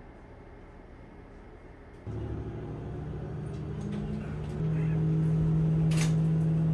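Diesel railcar engine (KiHa 48) throttling up from idle about two seconds in, becoming a steady low drone that steps up in loudness and pitch a couple of seconds later as the train pulls away. A single sharp click comes near the end.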